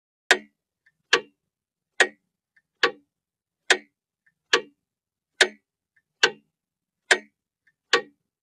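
Clock ticking steadily: sharp, even ticks a little more than once a second, ten in all, with a much fainter click in some of the gaps.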